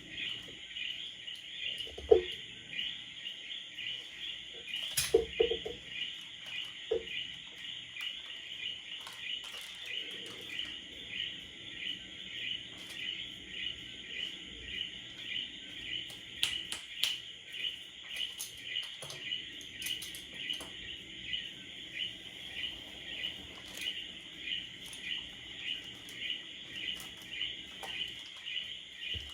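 A steady chorus of chirping calls from insects or small frogs, pulsing about one and a half times a second, with a few soft knocks in the first several seconds.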